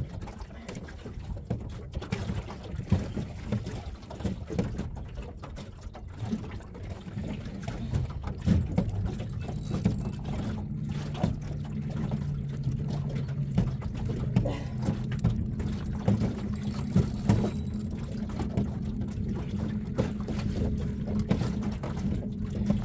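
Water slapping against a small boat's hull, with wind buffeting the microphone and scattered small knocks. A low steady hum joins about eight seconds in and carries on.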